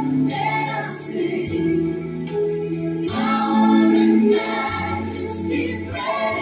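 A Christian song with female and choir voices singing held notes over a steady bass line, the music the puppets mouth along to.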